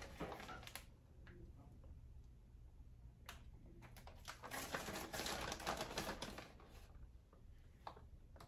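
Kitchen handling sounds: scattered light clicks and taps, with a soft rustle in the middle, as shredded cheese is sprinkled over the top of a lasagna.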